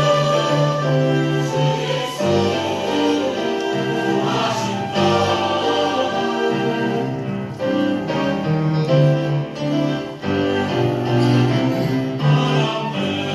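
Church choir singing a sacred anthem, many voices holding full chords that change about every second.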